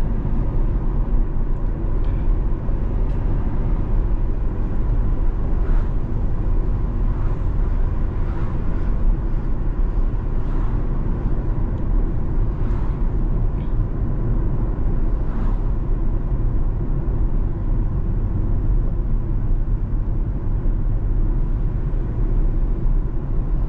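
C8 Corvette's V8 cruising at a steady pace, heard from inside the cabin as an even, low-pitched engine and road drone mixed with tyre noise.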